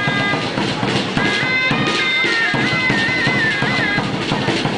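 Chirimía, a double-reed shawm, playing a high, reedy melody of held notes and quick trills, with drum strokes underneath.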